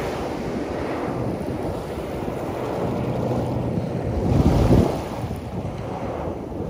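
Small waves lapping on a coral-gravel beach, under steady wind buffeting the microphone; a stronger gust of wind on the microphone about four and a half seconds in is the loudest moment.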